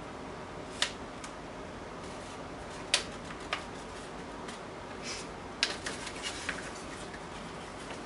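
Steady room hum with a scattering of short, sharp clicks and small taps, about eight in all, the loudest about three seconds in.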